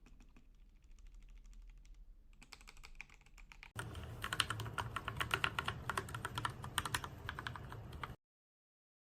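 Typing on a mechanical keyboard with Gateron Milky Yellow Pro linear switches. The rapid keystrokes are faint at first, become much louder from about four seconds in, then cut off suddenly near the end.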